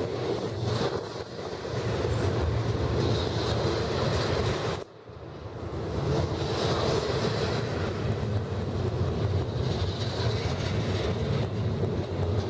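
Double-stack container well cars of a BNSF intermodal freight train rolling past at close range: a steady rumble of wheels on rail with scattered clicks. The sound drops away suddenly for a moment about five seconds in, then builds back.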